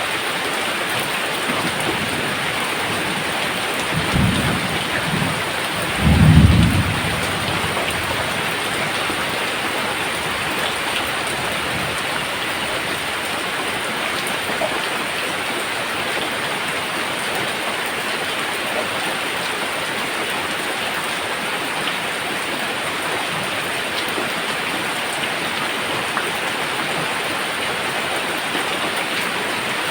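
Steady rain falling, with two short low thunder rumbles about four and six seconds in, the second one louder.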